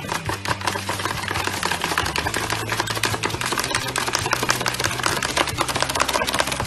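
A small dog's claws scratching and pawing at a cardboard pizza box, a fast, unbroken run of scrapes and taps.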